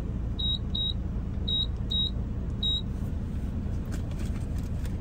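Car wash payment kiosk's card reader beeping as a card is tapped: five short, high beeps at one pitch, in two quick pairs and then a single, within the first three seconds. Under them is the steady low rumble of the idling car.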